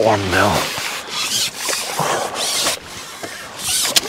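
A series of short rubbing, scraping sounds, with a brief voice at the start and a sharp click near the end.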